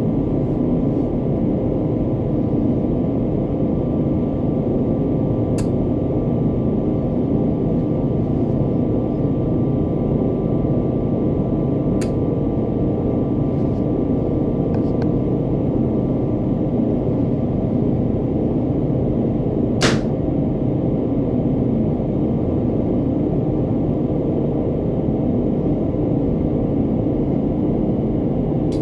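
A miniature spring pistol snapping shut as it fires, three sharp clicks several seconds apart, the last one loudest, over a steady low background rumble.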